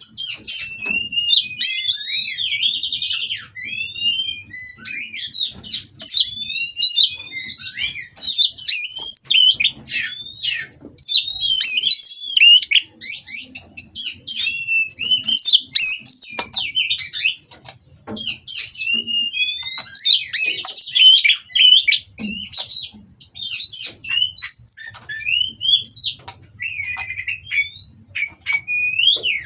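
Oriental magpie-robins (kacer) in mating condition singing a fast, varied song of whistles, trills and chirps, in near-continuous phrases with brief pauses.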